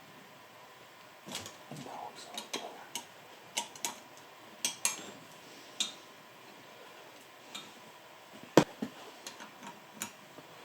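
Scattered light metallic clicks and clinks of hand tools and turbocharger parts being handled, with one sharper knock about eight and a half seconds in.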